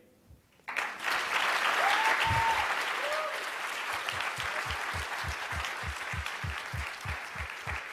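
Audience applause that starts suddenly about a second in and carries on steadily, with a steady low thudding about three times a second in the second half.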